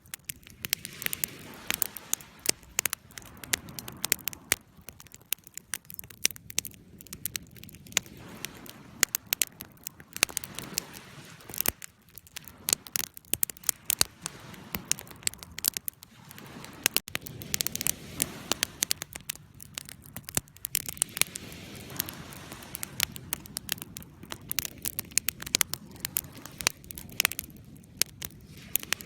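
Campfire burning, with irregular sharp crackles and pops over a soft low rush of flame.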